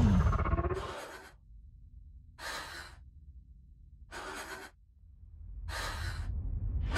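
Four sharp, tense breaths or gasps, roughly a second and a half apart, over a low droning rumble that swells toward the end; a louder sound dies away in the first second.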